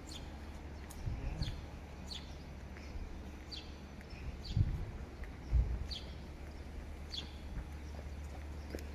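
A bird chirping over and over, short high downward notes about once a second. Under it runs a steady low rumble, with two dull low thumps about halfway through.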